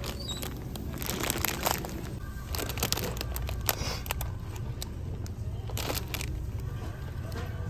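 Wind buffeting the microphone, a steady low rumble, with scattered crackling clicks on top.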